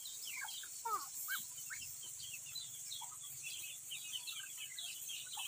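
A flock of Muscovy ducks with their ducklings: many short, high peeps and chirps, overlapping and scattered, over a steady high hiss.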